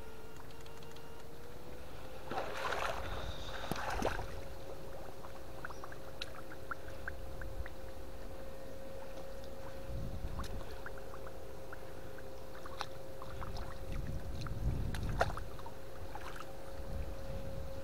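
Electric fish-shocker (PDC 8 FET setrum) running with a steady whine that holds one pitch and steps up slightly about a second and a half in. Under it, water sloshes and splashes, with louder bursts around three seconds in and again near fifteen seconds, and scattered small clicks.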